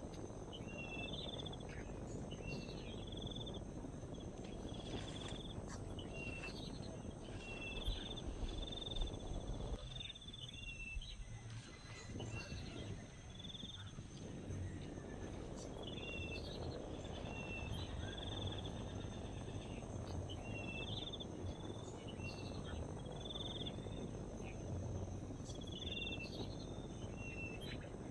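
Outdoor nature sound: short high chirps repeating every second or two over a steady high insect hum and a low rumble of background noise.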